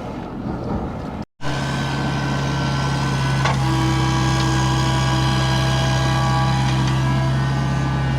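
Diesel engine of a piece of heavy equipment running steadily at constant speed with a strong low drone; before it, about a second of rougher noise ends in a sudden cut.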